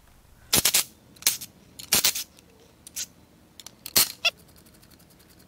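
About six short squeaks and scrapes spread over four seconds, from bolts on an engine's oil-pan baffle being worked loose.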